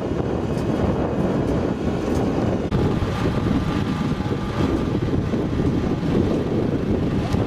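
Steady low rumble of a rice transplanter running in a flooded paddy, mixed with wind on the microphone.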